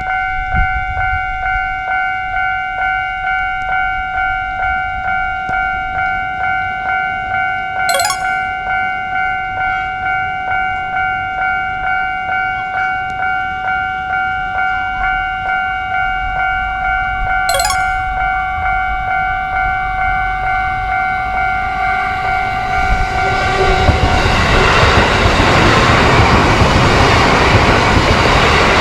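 Japanese railroad-crossing alarm ringing, a repeating electronic ding about one and a half times a second. About 23 seconds in, a JR Yokohama Line train passes, and its loud running noise takes over from the bell.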